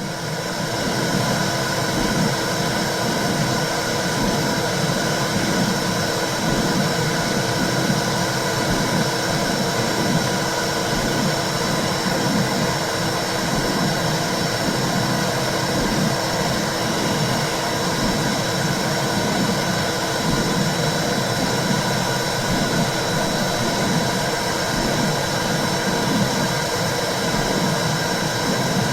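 Womb sound for soothing a baby: a steady whooshing rumble with a low, rhythmic pulsing throb running through it.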